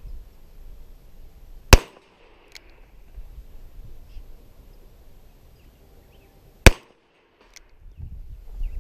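Two revolver shots, about five seconds apart, each a single sharp crack.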